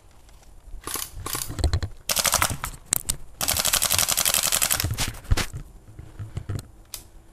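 Airsoft gun firing two rapid full-auto bursts, each about a second or more long, starting about two seconds in, with a few scattered single clicks and knocks around them.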